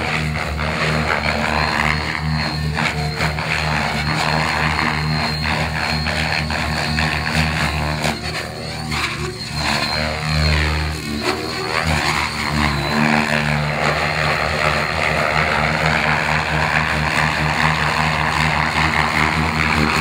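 Radio-controlled model helicopter flying aerobatics: its engine and main rotor run steadily with a fluttering blade chop, while the higher rotor sound sweeps up and down in pitch as it manoeuvres.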